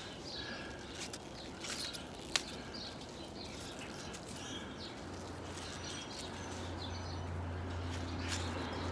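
Small birds chirping in the background of a quiet yard, with one sharp click about two and a half seconds in. A low steady hum joins about halfway through.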